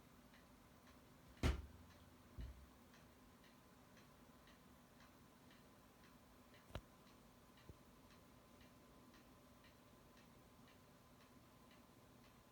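Faint, steady ticking about twice a second, with a sharp knock about a second and a half in, a softer knock a second later, and a light click past the middle.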